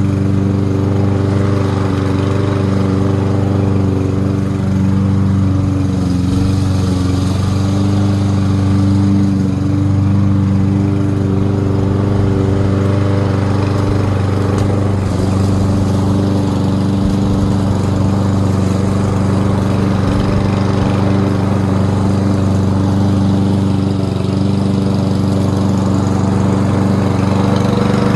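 Lawn-Boy 20-inch lawn mower's engine running at a steady, even speed.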